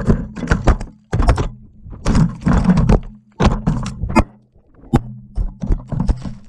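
FPV quadcopter tumbling through tree branches: a rapid, irregular string of knocks and cracks as its frame and propellers strike and snap branches, over a low motor hum. The quad is short of thrust on an old LiPo battery.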